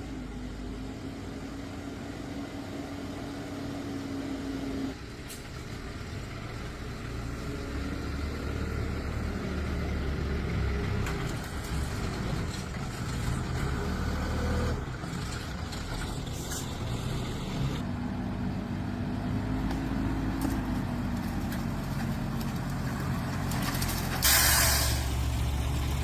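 A vehicle engine running while the vehicle drives and manoeuvres, its pitch rising and falling as it is throttled up and eased off. There is a short, loud hiss of air about two seconds before the end.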